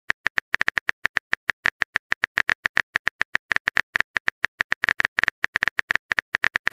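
Rapid keyboard key-click sounds from a texting app's on-screen keyboard as a message is typed, about seven short sharp clicks a second, slightly irregular.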